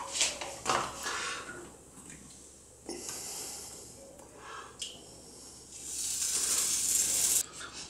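Thick milk-and-rice pudding mixture being poured from a steel pot into an aluminium tray: a few light clinks and knocks in the first second, then a soft wet hiss as the heavy mixture slides out, loudest in the last two seconds.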